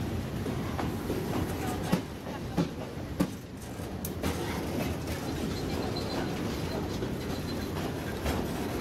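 A diesel-hauled freight train rolling past: its locomotives run with a steady low rumble, and the wheels click and knock over the rail joints every second or so, then boxcars follow.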